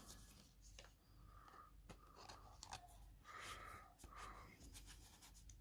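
Faint rustling and small clicks of a plastic card sleeve as a trading card is slid into it.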